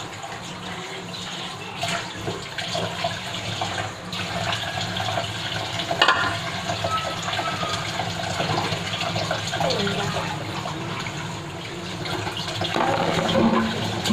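Kitchen tap running steadily into the sink during hand dish-washing, with a few short clatters of dishes.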